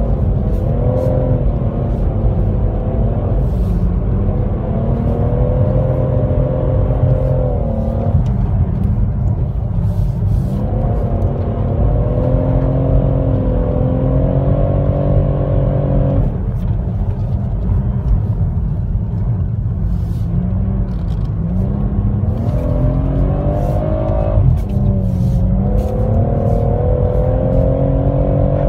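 BMW M140i xDrive's turbocharged 3.0-litre inline-six, heard from inside the cabin, revving hard between about 3,500 and 6,000 rpm. Its pitch climbs and falls, with the revs dropping sharply about 8, 16 and 24 seconds in, over a steady low rumble.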